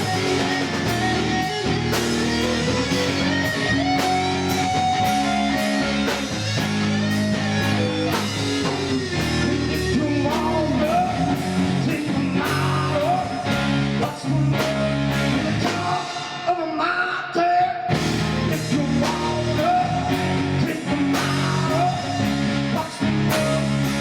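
Blues-rock music: electric guitar chords over a drum kit with a steady beat, and a lead line that bends in pitch above them. The cymbals drop out briefly about two-thirds of the way through.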